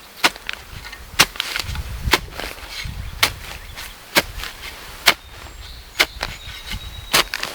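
Repeated sharp knocks, about one a second and evenly spaced, with rustling between them.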